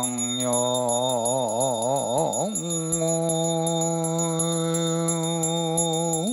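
Buddhist ritual chanting by a single low voice that wavers in drawn-out melisma, then holds one steady note from about two and a half seconds in. Under it a handbell is shaken in a steady rapid rhythm of several ringing strokes a second.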